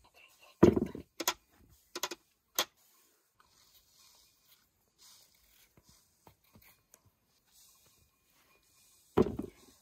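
A potato being peeled by hand with a small knife: scattered light clicks and ticks of the blade. There is a louder knock about half a second in, three sharp clicks over the next two seconds, and another knock near the end.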